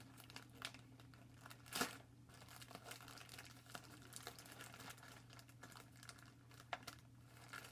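A plastic mailer bag being torn open and crinkled by hand: faint crackling and tearing, with a louder rustle about two seconds in and another near the end.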